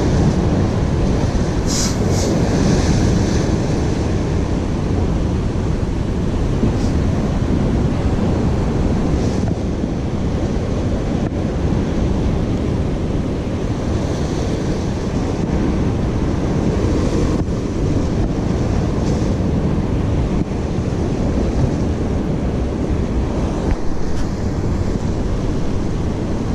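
Sea waves washing against shore rocks, with wind rumbling on the microphone; the sound stays steady throughout.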